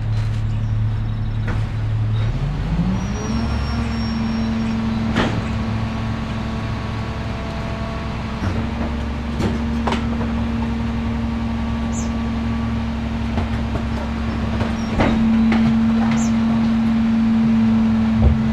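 Garbage truck engine running steadily, then revving up about two seconds in and holding at the higher speed, with a scatter of sharp knocks and bangs throughout; it gets somewhat louder near the end.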